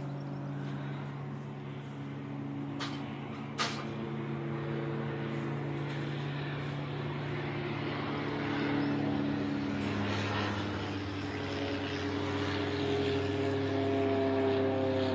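Single-engine propeller plane's piston engine humming overhead, a steady low tone that dips slightly in pitch about ten seconds in and grows louder toward the end. Two sharp clicks about three seconds in.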